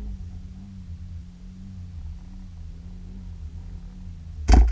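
Steady low underwater rumble picked up by an action camera in its waterproof housing, with a faint wavering hum, broken near the end by a sudden loud knock.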